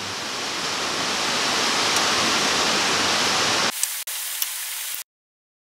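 Heavy rain falling steadily, a dense even hiss. Near the end it thins to a higher, quieter hiss with a couple of faint clicks, then cuts off into silence.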